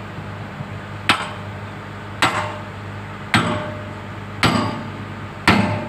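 Heavy hammer blows on steel, five strikes about a second apart, each ringing briefly, as the excavator bucket pin is driven in. Under them runs the steady hum of the idling excavator engine.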